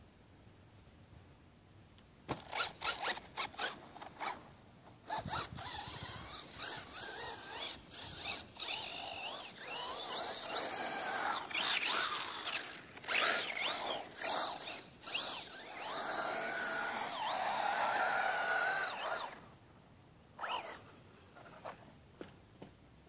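Axial Exo electric RC buggy's motor whining as it climbs a sand slope, its pitch rising and falling with the throttle. It gives a few short throttle blips first, then runs almost continuously, stops about three seconds before the end, and gives a couple more brief blips.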